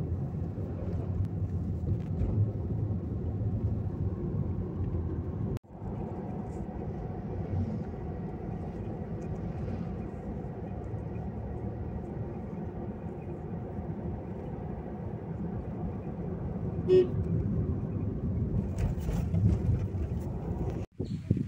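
Steady engine and road noise heard from inside a moving car, a low rumble with an even drone. A short horn toot comes about 17 seconds in, and the sound cuts out for an instant about five and a half seconds in.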